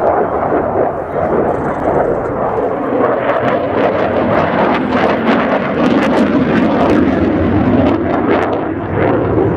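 F-4EJ Phantom II's twin J79 turbojets passing overhead: loud, continuous jet engine noise with a crackle through it, loudest in the second half.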